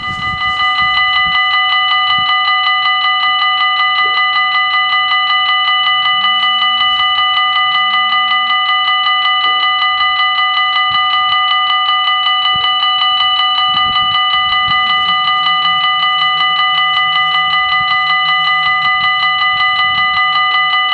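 Level-crossing warning bells ringing: a loud electronic ring pulsing in a rapid, even beat while the barriers are lowered.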